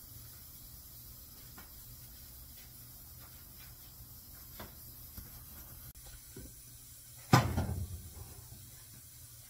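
Scattered faint knocks and handling sounds, then one loud thump about seven seconds in, over a steady low hum.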